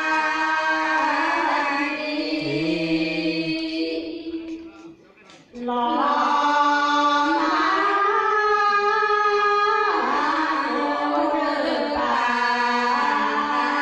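A group of Karen women chanting traditional hta verse in unison, unaccompanied, on long held notes. The singing breaks off briefly about five seconds in, then picks up again.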